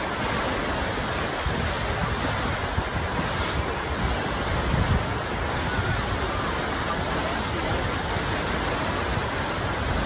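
Latourell Falls, a tall plunge waterfall, pouring into its pool: a steady, unbroken rushing of falling water.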